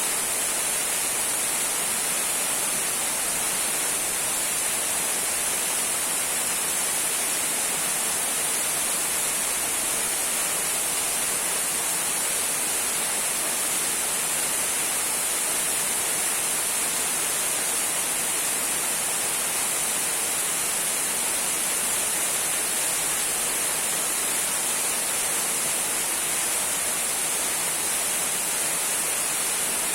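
Small waterfall trickling and splashing in a steady, even hiss of falling water, with the most energy in a bright high hiss.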